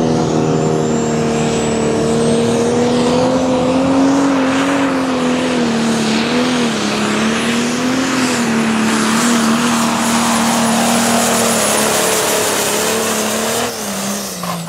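Pro Stock pulling tractor's turbocharged diesel engine running flat out under load on the brake sled, its note wavering slightly, with a high turbo whistle that climbs over the first few seconds. Near the end the engine note drops away abruptly as the run ends and the throttle comes off.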